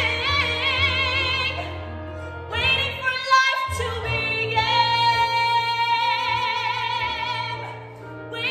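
A woman singing in full voice with wide vibrato over an instrumental accompaniment. After a short break for breath a little past three seconds in, she holds one long high note through most of the second half.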